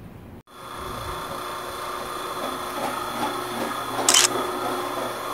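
Motor-driven drain-cleaning machine running with a steady mechanical hum, starting abruptly about half a second in, with a short hissing burst about four seconds in.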